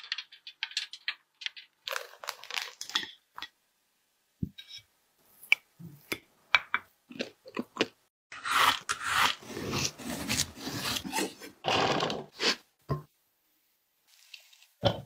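Crunching and crackling of a crisp, nut-studded shell on a taro mille-crêpe roll being broken into: scattered sharp crackles at first, then a long dense stretch of crunching about halfway through.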